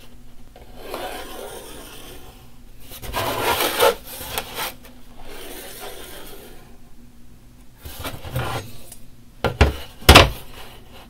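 Pencil drawing lines along a metal square ruler on a board, several scratchy strokes with the ruler rubbing and sliding over the surface. Two short sharp knocks near the end, the loudest sounds, as the ruler is shifted on the board.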